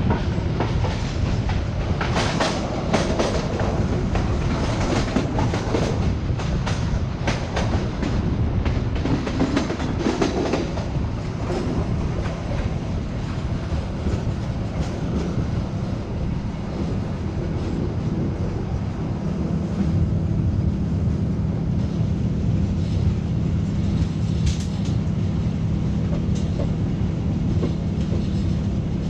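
Passenger train coach rolling into its terminus station, wheels clacking over the track. The clacks come thick and fast for roughly the first ten seconds, then give way to a steadier rumble with a low hum.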